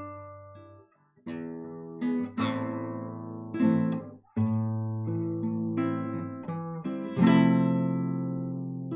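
Classical guitar played solo: chords struck one after another, each left to ring and fade, with short breaks about a second in and again near four seconds in.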